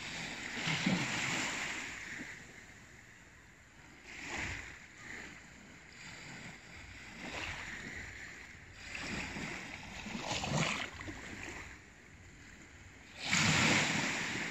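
Small waves washing onto the shore of a calm sea, each one a short rush that swells and fades every few seconds. The loudest wash comes near the end.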